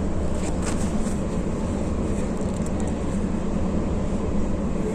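Intercity coach cabin at highway speed: steady low engine and tyre rumble, with a few faint clicks and rattles in the first few seconds.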